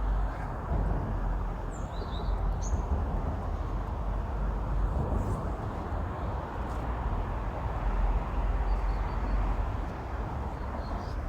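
Outdoor background noise: a steady low rumble under an even hiss, with a few short high bird chirps about two seconds in and faintly again later.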